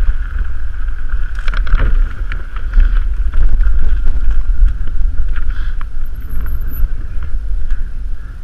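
Wind buffeting the microphone of a camera riding on a moving mountain bike, with the low rumble of tyres over gravel and grass. Scattered clicks and rattles from the bike over the rough ground, a cluster about a second and a half in.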